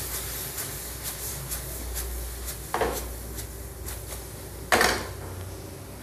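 Wooden spatula stirring and tossing chow mein noodles in a wok, scraping and lightly knocking against the pan, with two louder clatters about three and five seconds in, the second the loudest.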